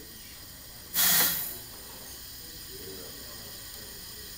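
A short burst of compressed air hissing about a second in, lasting about half a second, as the pneumatic actuator of a Fisher V-Ball valve strokes the ball further open.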